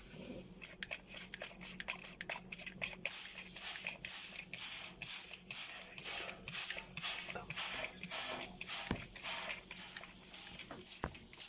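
Hand trigger spray bottle of vinegar pumped over and over, each squeeze a short hiss of spray, about two a second; the user says the bottle is not spraying finely.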